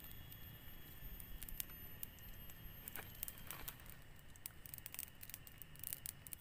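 Faint, irregular crackling and snapping from a small twig campfire as it catches, with sticks being laid and shifted on it.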